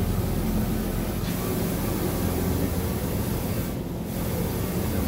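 Automatic car wash water jets spraying against the sides of a cargo van, heard from inside the empty cargo hold as a steady hiss over a low hum. The hiss thins briefly about four seconds in, as the spray moves along the body.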